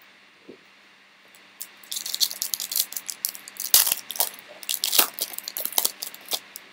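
Foil wrapper of a Recon basketball trading-card pack being torn open and crinkled by hand: a dense run of sharp crackles that starts about one and a half seconds in and dies away just before the end.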